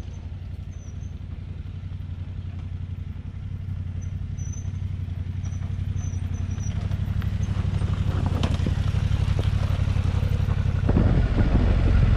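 Adventure motorcycle engines running, the sound growing steadily louder as a second bike rides down a loose gravel slope toward the camera bike, with a few clattering knocks from the stones. About eleven seconds in it jumps abruptly louder.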